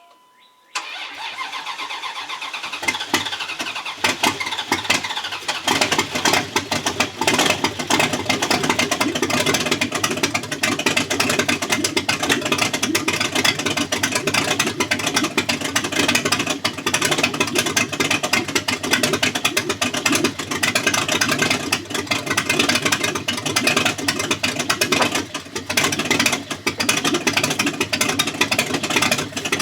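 Dodge Durango engine starting after sitting unrun for a couple of years: the starter cranks from about a second in, the engine catches after a few seconds, then keeps running loudly and steadily.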